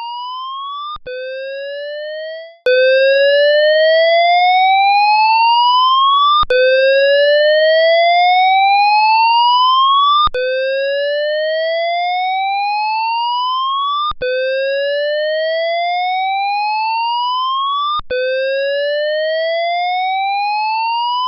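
Australian school evacuation alarm tone: a loud electronic rising 'whoop' that sweeps slowly up in pitch over about four seconds, drops back and starts again, repeating several times. It is the signal to evacuate.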